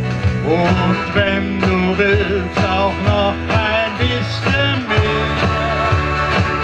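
Piano accordion playing a lively melody in an instrumental break between sung lines, over sustained bass notes and a steady beat.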